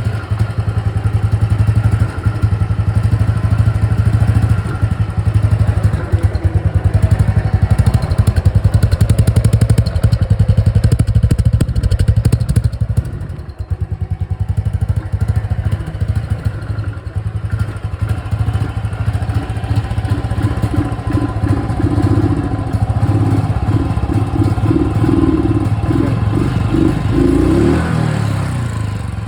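Royal Enfield Thunderbird's single-cylinder engine running with its rhythmic exhaust thump. It is louder for the first half, drops off briefly about halfway, then settles into a somewhat quieter, steady running, with a short rise in pitch near the end.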